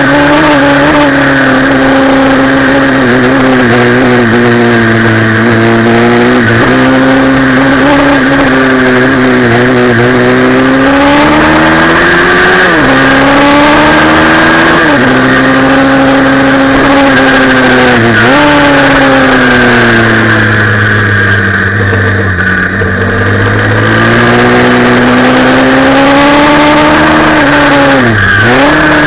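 Pit bike's small single-cylinder four-stroke engine heard on board at racing speed, its revs swinging up and down through the corners. Its pitch dips sharply and recovers several times, then sinks slowly and goes a little quieter about twenty seconds in as the bike slows for a corner, before climbing again.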